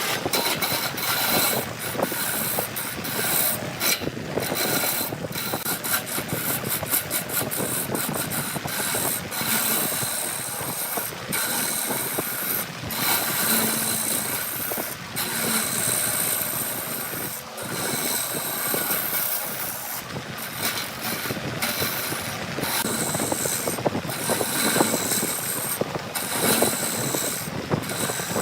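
Machinery running with a continuous mechanical clatter that rises and dips unevenly throughout.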